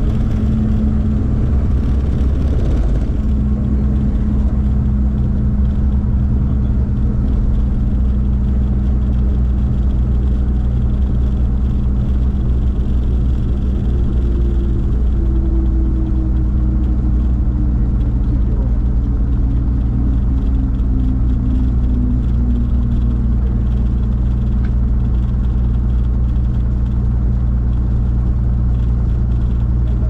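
Bellanca Turbo Viking's piston engine and propeller running at low power during the landing rollout, heard from inside the cabin as a steady low drone. A fainter tone slides slowly down in pitch midway through.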